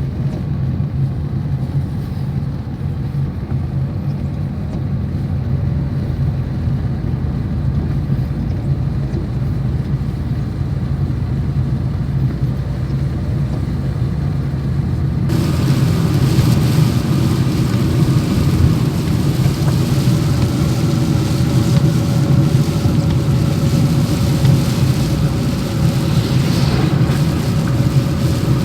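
Car moving along a road: a steady low rumble of engine and tyres. About halfway through, the sound abruptly turns brighter and hissier.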